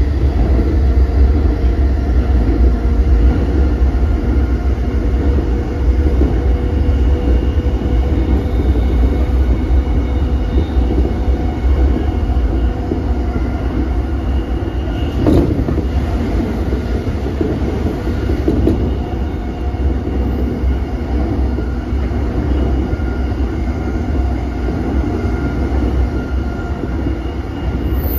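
Running sound inside a JR East E233 series 5000 electric commuter train car at speed: a steady rumble of wheels on rail with faint steady whining tones. One sharp knock about halfway through.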